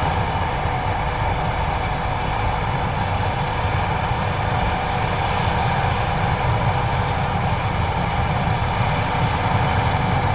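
John Deere 9570STS combine harvester running steadily under load, a low engine rumble under the steady whine of its threshing and conveying machinery.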